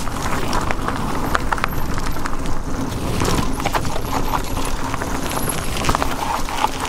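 An e-mountain bike rattling down a rough forest trail: irregular knocks and clatter from the frame, chain and tyres over roots and stones, over a steady low rumble.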